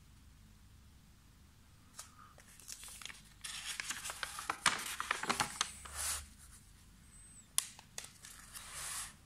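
Paper pages of an old sticker album being handled and turned, rustling and crinkling in a run of bursts through the middle, then a sharp tap and a short swish of paper near the end.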